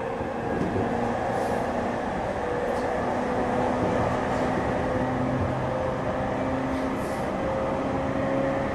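Interior running sound of the E231 series 900-subseries electric train car MoHa E231-901, under way with a Hitachi IGBT-VVVF inverter: a steady rumble of wheels on track with a humming motor tone that climbs slowly in pitch.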